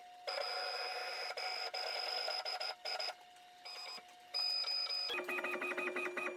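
Stepper motors of a Genmitsu PROVerXL 4030 V2 CNC router whining as they drive the gantry and spindle along the axes, stopping and starting several times. About five seconds in the sound changes to a lower steady tone with a fast pulsing pattern as the motion changes.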